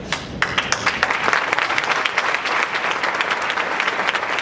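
Audience applauding. The clapping starts abruptly, builds within the first second, and then goes on steadily.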